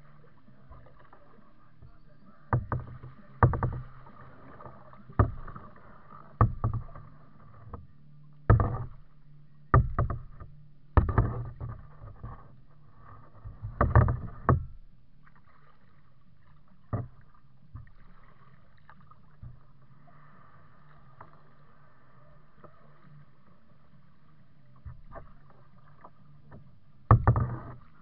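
Plastic kayak being paddled: a series of knocks and splashes from the paddle strokes, about one a second, thinning out to a few isolated ones in the second half and picking up again near the end.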